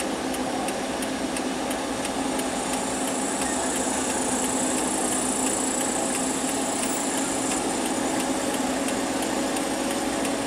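Vehicle engine running steadily at low speed, with a regular quick ticking, about two to three ticks a second, over it.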